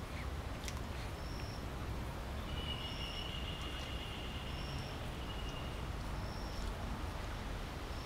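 Outdoor ambience: a low, steady rumble, with a short, high chirp repeating about every second and a half. About two and a half seconds in, a longer high, buzzing call starts and lasts some three seconds.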